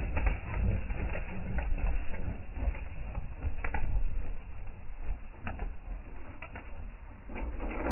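A flock of pigeons taking off from a crate, wings clapping and flapping, the flapping thinning out as the birds fly away. Wind rumbles on the microphone underneath.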